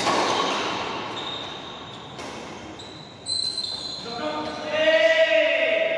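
Badminton rackets striking the shuttlecock in a doubles rally, sharp smacks that ring on in a large echoing hall, with a voice calling out near the end.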